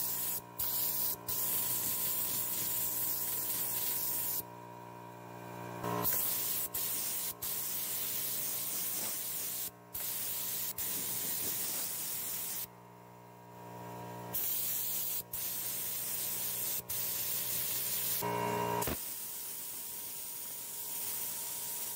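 Chrome spray paint hissing out in repeated bursts, with short breaks between passes, over a steady low hum.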